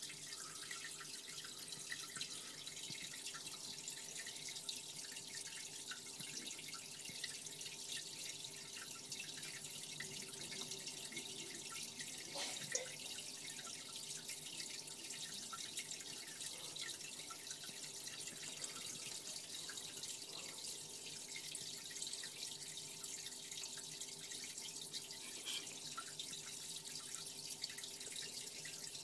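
Steady trickling and dripping of aquarium water, with a faint steady hum underneath. A single sharp tick comes about halfway through.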